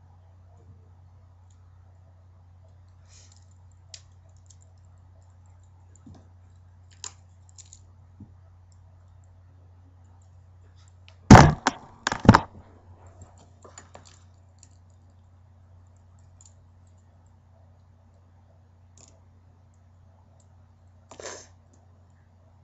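Small plastic clicks of a Bakugan toy's pieces being handled and snapped together, scattered and sparse, over a steady low hum. Two loud knocks come a little before halfway through, a second apart.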